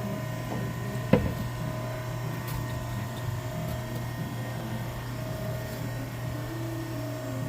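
Butter-portioning machine with a steady low hum, a single sharp knock about a second in, and a few faint ticks after.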